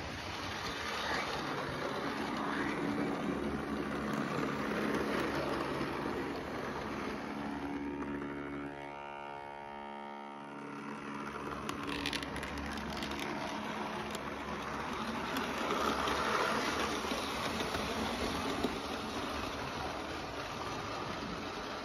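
Model railway train, a model Class 66 diesel locomotive hauling coaches, running along the track close by: a steady rumble and whir of the electric motor and the wheels on the rails. Near the middle a humming tone stands out and a few clicks follow.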